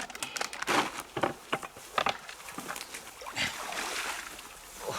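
Water splashing and sloshing with scattered knocks and rattles as a fish trap net and its catch are handled and water is scooped into a container.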